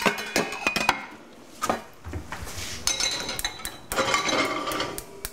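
Metal cookware clinking and clattering, with several sharp knocks: a small pot being handled and set on the stove. A brief metallic ring sounds about three seconds in.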